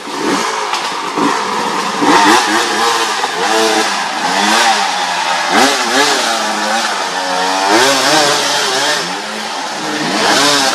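Dirt bike engine revved hard again and again, its pitch rising and falling every second or so as the throttle is opened and shut.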